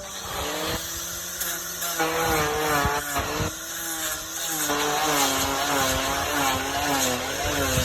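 A power tool's motor running, its pitch wavering up and down as the load changes, with scattered clicks.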